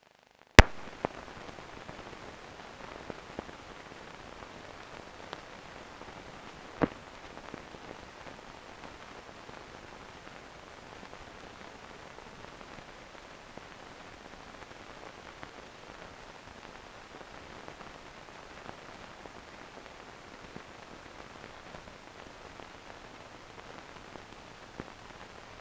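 Hiss and crackle of an old black-and-white film's soundtrack with no sound recorded on it, opening with a loud pop about half a second in and scattered clicks, the strongest about seven seconds in.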